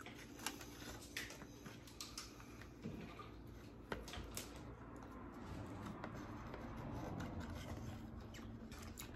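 Wooden chopsticks clicking and scraping against a plastic food tray, a handful of separate light clicks while picking up crumbly sushi topping.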